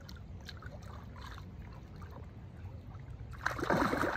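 Lake water lapping with small splashes, then about three and a half seconds in a hooked carp thrashes and splashes loudly at the surface beside the landing net as it is drawn in.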